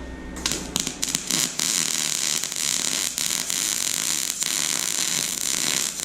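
Wire-feed welding gun striking an arc about half a second in, then a steady crackling sizzle as a beginner runs a bead.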